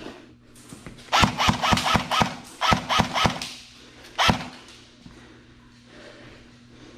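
Airsoft gun firing a quick string of about eight sharp semi-auto shots in two seconds, then one more shot about a second later.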